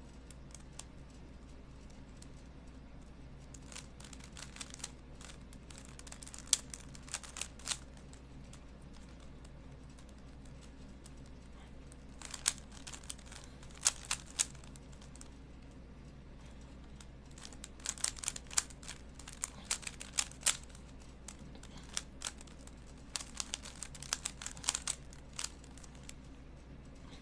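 Plastic Rubik's Cube being twisted by hand: bursts of quick clicking and clacking turns, with pauses of a few seconds between bursts, over a faint steady hum.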